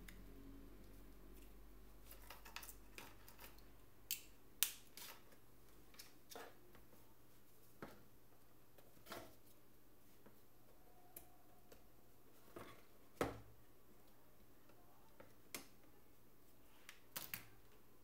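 Sharp plastic clicks and taps as the rear midframe of a Samsung Galaxy S3 Neo is pried off by hand, its clips snapping loose. About a dozen clicks come at irregular intervals, the loudest about four and a half seconds in and again around thirteen seconds.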